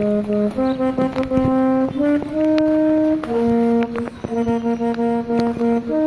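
Music: a slow melody of long held notes that step to a new pitch about once a second, with scattered sharp clicks.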